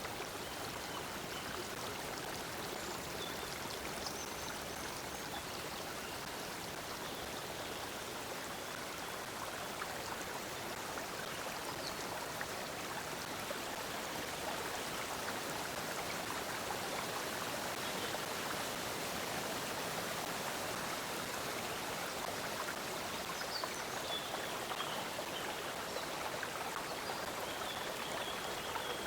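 Stream water flowing and babbling steadily, with a few faint high bird chirps now and then.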